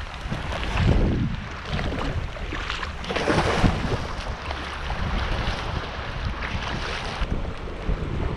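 Seawater sloshing and splashing around the camera, with wind buffeting the microphone. Louder surges come about a second in and again about three seconds in.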